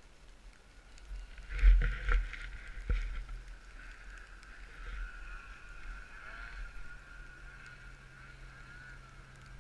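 Snowmobile engines running with a steady high whine, with a few loud thumps about two and three seconds in.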